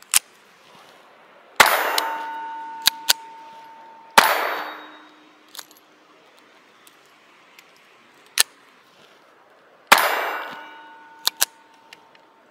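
Four .22 LR pistol shots from a Ruger Mark IV 22/45 Lite, a few seconds apart, striking a steel target. After the first and third shots the steel plate rings on with a clear held tone.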